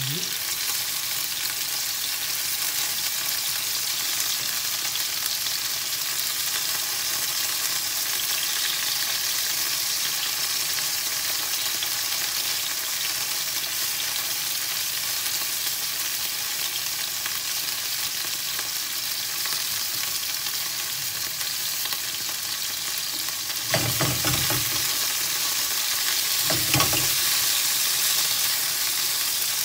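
Beef koftas frying in olive oil in a pan, a steady sizzle. Near the end come two short knocks as a wooden spatula works the pan.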